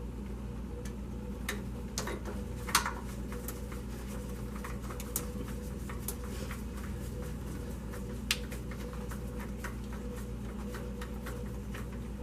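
Scattered light metallic clicks and ticks of hand tools working a fastener, irregular, with a few sharper clicks spread through, over a steady low hum.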